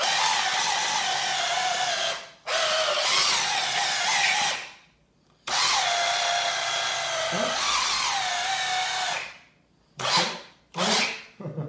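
Small electric mini chopper (hachoir) motor running in pulses as it chops basil leaves fine. Three long runs come with short pauses between them, then a few quick short pulses near the end. The motor's whine wavers and dips in pitch during each run.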